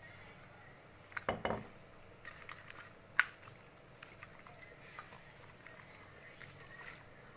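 Steel mixer-grinder jar knocking against a steel bowl as ground mint paste is emptied onto raw chicken: a dull knock just over a second in and a sharp metal clink a little after three seconds. After that come faint soft sounds of the chicken being mixed by hand.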